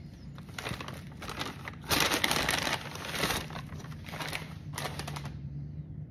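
Brown paper takeout bag rustling and crinkling in several bursts as a hand rummages inside it, loudest about two seconds in and stopping near the end.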